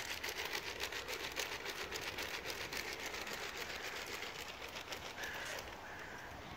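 A fast, even run of clicks, like a mechanical rattle, lasting about five and a half seconds before it stops. There is a short high tone near its end.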